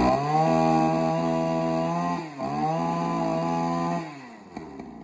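A 27cc two-stroke brush cutter engine revved to full throttle and held there. It drops for a moment a little past halfway, revs straight back up, then falls back toward idle near the end. It is a fast-revving engine with a clear, free-revving sound.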